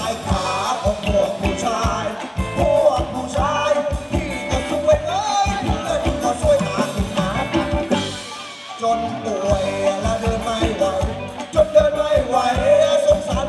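Live band playing Thai ramwong dance music: a singer over a steady drum beat. The bass and drums drop out for a moment about eight seconds in, then come back.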